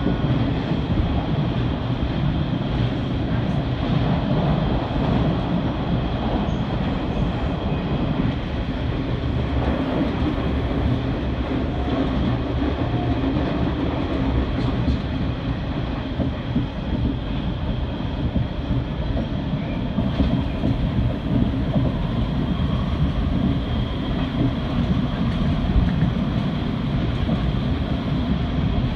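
Electric commuter train running at speed, heard from inside the front car: a steady noise of wheels on the rails, with a faint high steady tone through it.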